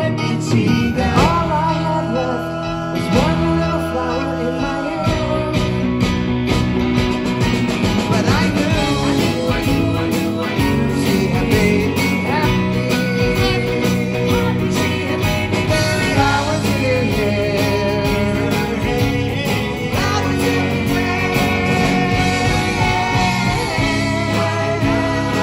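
A live pop-rock band playing a song, with sung vocals over acoustic and electric guitars and drums.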